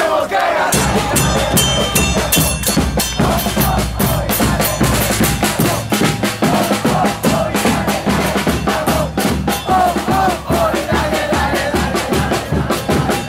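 Drum-driven music: a fast, dense drum beat with singing voices over it, and a bass line that comes in about a second in.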